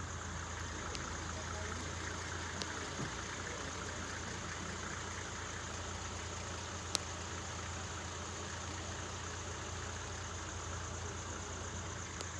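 Vehicle engine idling with a steady low hum, and a single sharp click about seven seconds in.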